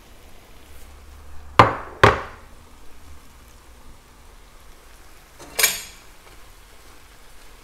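A stone mortar knocked hard twice against the rim of an enamelled pot, about half a second apart, to empty ground crayfish into the stew, then a lighter clank about four seconds later.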